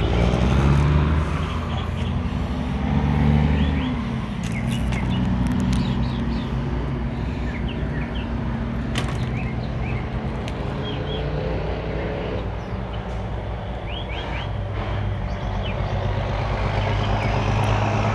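A large engine running steadily, its low hum drifting slightly in pitch, with a few short high chirps and clicks over it.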